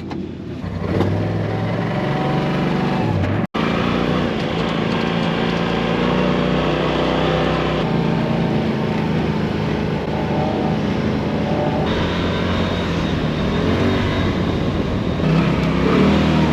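A vehicle engine running steadily while driving, with a very brief dropout about three and a half seconds in.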